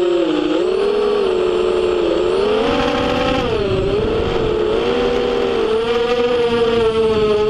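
FPV racing quadcopter's motors and propellers whining, the pitch rising and dipping over and over as the throttle changes.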